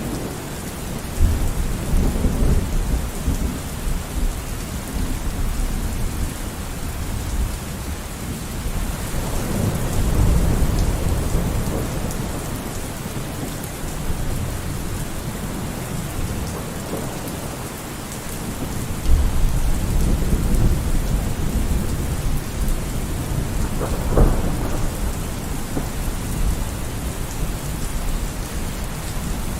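Steady heavy rain during a thunderstorm, with thunder rolling in low rumbles several times and one sharp crack near the end.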